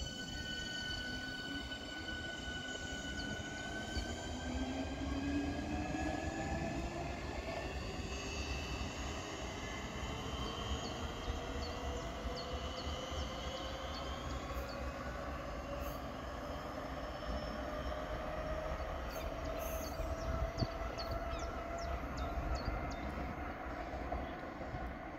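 A Class 465 Networker electric multiple unit accelerating away, its traction motors whining in several tones that climb steadily in pitch as it gathers speed. Light ticks come in over the underlying rumble in the second half.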